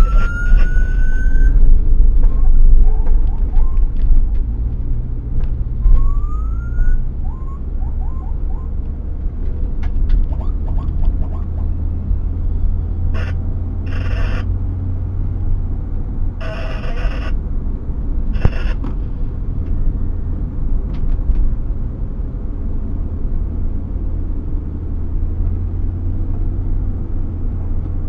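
Steady low road and engine rumble inside a moving ambulance's cabin, with short rising siren whoops near the start and again about six seconds in. A few brief bursts of noise come around the middle.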